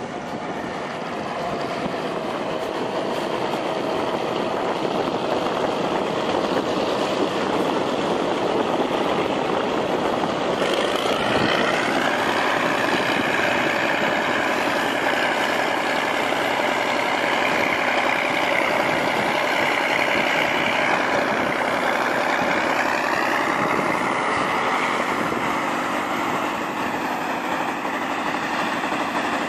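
Heavy three-axle truck with a front-mounted rotary snowblower working through deep snow: a steady engine and machine noise, with a higher wavering whine that joins partway through.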